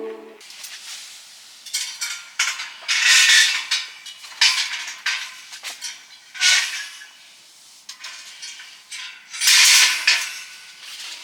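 Metal camp cookware and utensils being handled: irregular scraping and clinking in a series of short bursts. Music cuts off at the very start.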